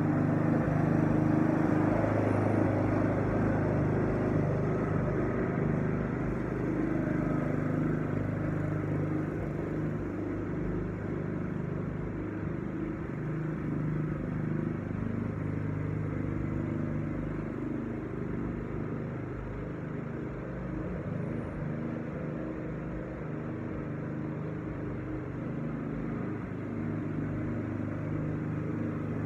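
Walk-behind lawn mower's small engine running steadily under load while mowing. It is loudest in the first few seconds and gets quieter as the mower moves away across the lawn.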